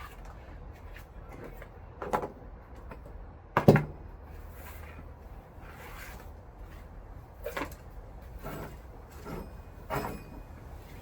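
Scattered knocks and clicks of objects being handled, five or six in all, the loudest about three and a half seconds in, over a low steady hum.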